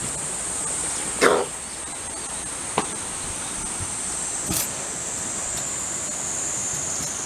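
Steady, high-pitched drone of insects. A short, louder sound that falls in pitch comes a little over a second in, and two sharp clicks follow later.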